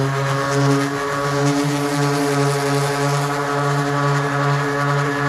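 Random orbital sander running steadily with a 320-grit disc pressed against a plastic kayak hull, a steady motor hum that holds one pitch. It is the first coarse pass, taking the discoloured surface off the plastic.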